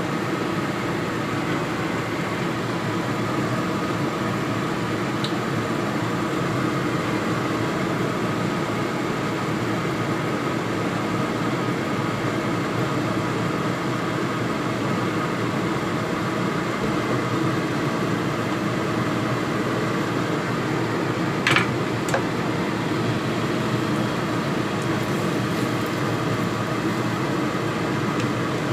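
Steady fan-like hum with a faint whine running through it, and a single sharp clink about three quarters of the way through.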